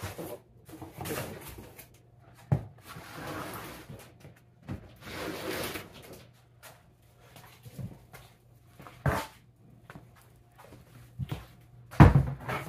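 Scattered knocks and clatter with rustling as a person moves about and handles things, the loudest knock near the end, over a faint steady low hum.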